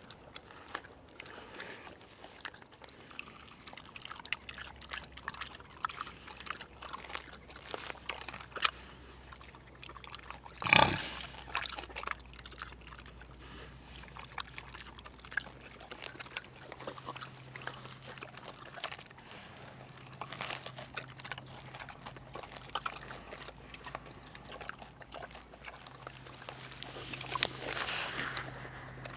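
Tamworth pig rooting in frozen soil with its snout: snuffling, crunching and chewing, with many small crackling clicks. One louder, brief noise comes about eleven seconds in.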